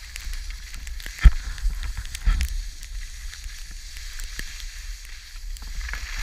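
Skis scraping and chattering over snow while skiing down a trail, a crackling hiss full of small clicks over a low rumble of wind on the microphone. A sharp thump comes about a second in, and another about two seconds in.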